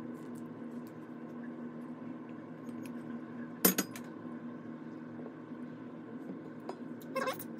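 A metal saucepan set down on a gas stove grate with one sharp clank about halfway through, then a few quieter metal clinks near the end, with a stainless steel bowl of ganache being stirred with a silicone spatula in between. A steady low hum runs underneath.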